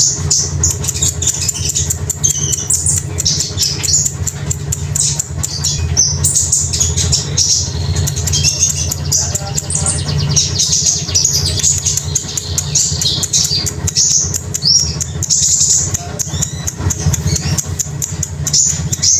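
A songbird singing in a long run of quick, high chirps and squawky notes, with a steady low hum underneath.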